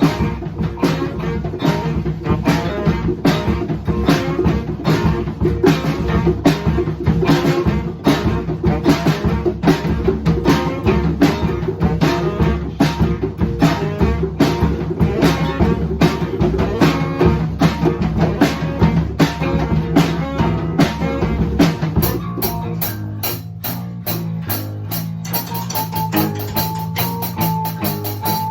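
A live band plays an instrumental groove on drum kit, bass guitar and electric guitar. About 22 seconds in, the heavy drum beat drops away and the playing thins out, and a single held high note comes in near the end.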